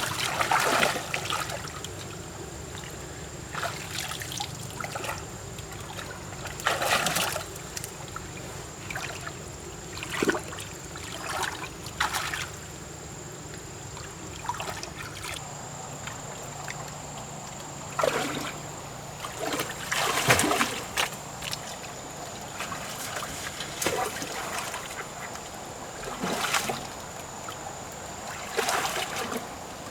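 Shallow water splashing and sloshing in short, irregular bursts, about a dozen in all, with the loudest around seven, eighteen and twenty seconds in.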